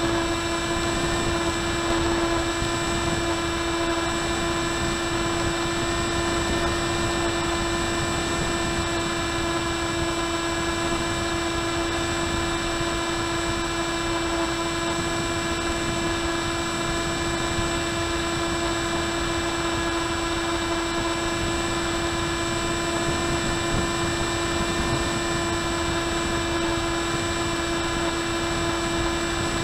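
Electric motor and propeller of an RMRC Penguin FPV plane in steady cruise, heard from the onboard camera: a constant droning whine over rushing wind noise.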